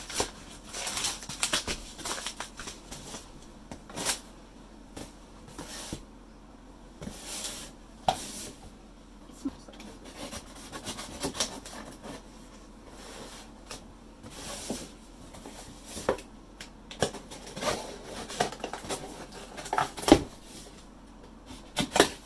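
A gift package being handled and opened by hand: irregular rustling with scattered clicks and knocks.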